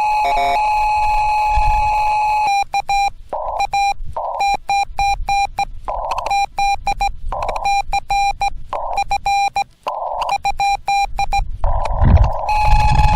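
Morse code tones from a Yaesu FT-891 ham radio transceiver, heard in a narrow hiss of band noise. The tone starts long and steady, then is keyed in dots and dashes with short patches of static between characters. A low thump comes near the end.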